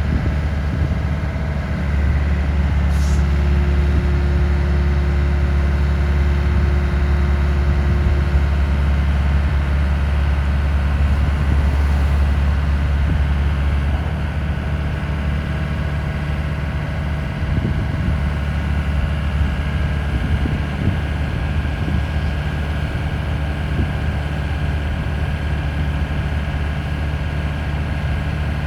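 Takeuchi TB180 midi excavator's diesel engine running steadily, easing slightly about halfway through, with a few light knocks later on.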